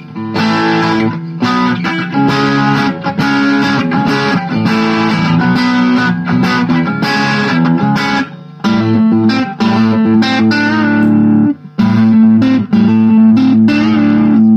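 Chinese replica Fender Stratocaster electric guitar with ash body, maple neck and single-coil pickups, played through a light overdrive, with a few brief pauses between phrases.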